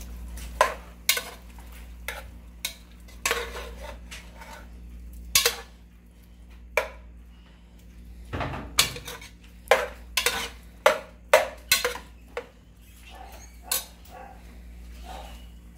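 Metal spoon clanking and scraping against the sides of an aluminium pressure cooker as chunks of beef are stirred: irregular sharp knocks, coming thickest a little past the middle, over a low steady hum.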